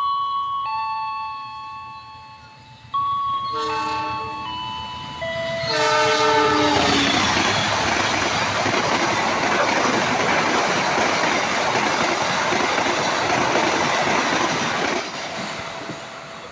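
Melodic background music notes, then a diesel locomotive's horn sounds the semboyan 35 signal: a short blast about 4 s in and a longer one about 6 s in. The train then passes with a loud, steady rush for about eight seconds before it fades.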